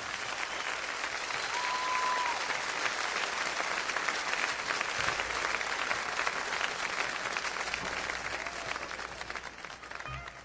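Audience applauding and cheering, with a short whistle about two seconds in, fading out near the end.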